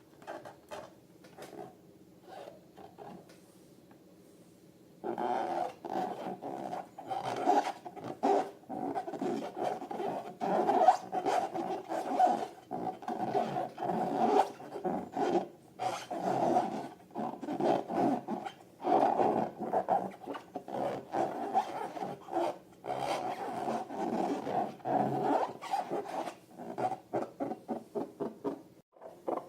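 Slime-filled long balloons being squeezed and rubbed by hand: a rapid, irregular run of rubbery squeaks and squelches that starts about five seconds in, after a few faint clicks.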